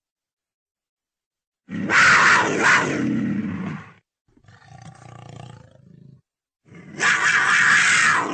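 Leopard calling: a loud call lasting about two seconds, then a quieter call, then another loud call near the end.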